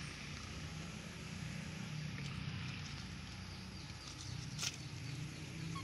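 Outdoor background of a steady low hum under a faint hiss, with one sharp click about three-quarters of the way through and a short faint chirp at the end.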